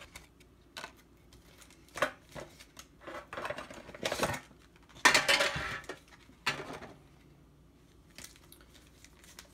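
Pokémon card tin and its clear plastic blister insert being handled: scattered clicks and light clatters, with short rustling bursts of plastic, the loudest about five seconds in.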